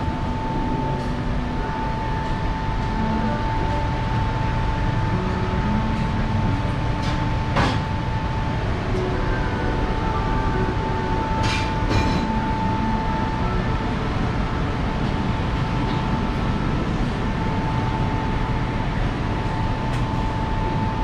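Steady rumbling restaurant ambience: ventilation noise with a constant high hum and a faint murmur of distant voices. A few sharp clinks cut through, one about seven and a half seconds in and two close together about twelve seconds in.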